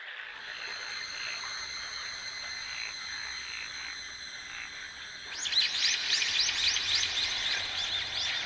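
Forest soundscape: steady high-pitched tones over a faint hiss. About five seconds in, a fast run of short, repeated chirping animal calls begins, several a second, and the sound gets louder.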